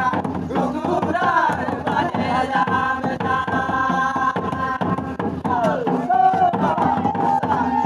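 A group of voices singing a Karam folk song together in long held, rising and falling lines, with a double-headed barrel drum beating along.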